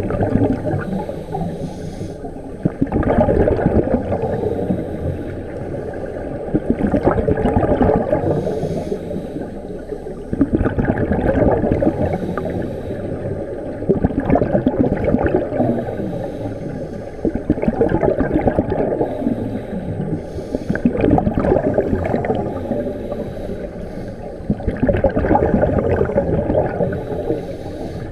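Scuba regulators breathing underwater: a bubbling rush of exhaled air about every three to four seconds.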